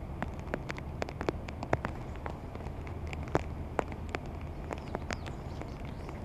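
Scattered raindrops starting to fall, heard as irregular sharp ticks and taps, several a second, over a low steady background rumble.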